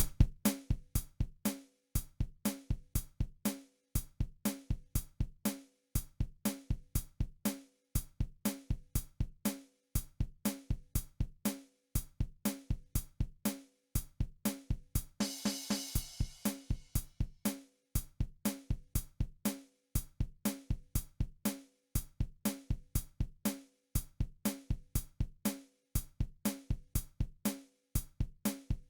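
A steady drum beat of kick, snare and hi-hat repeating the same pattern, with a cymbal wash about halfway through.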